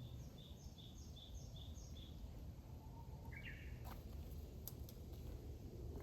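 Faint bird calls: a run of five short, evenly spaced chirps, then a single different call about three seconds in, over a low steady background rumble.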